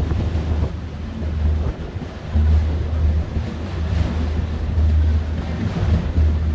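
Wind buffeting the microphone in uneven low gusts on board a moving passenger ferry, over a steady rush of water and the boat's running noise.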